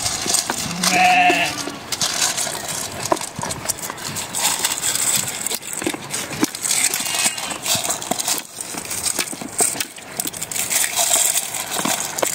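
A sheep bleats once, briefly, about a second in. Through the rest there is a steady patter of small clicks and crunches as a ram eats grain from a metal bowl.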